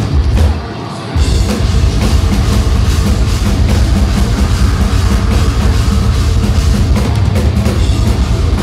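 Deathcore band playing live, heard loud and distorted from the crowd: down-tuned guitars, bass and fast, dense drumming. There are screamed vocals over it. The band drops back briefly about half a second in, then crashes back in at full volume about a second in.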